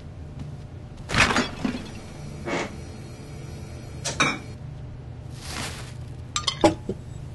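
Kitchen handling sounds around a refrigerator: its door opening and glass clinking, with several knocks and clicks, the sharpest cluster near the end, over a steady low hum.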